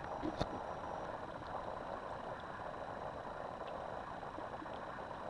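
Faint, steady outdoor background hiss with no distinct source, and one sharp click about half a second in.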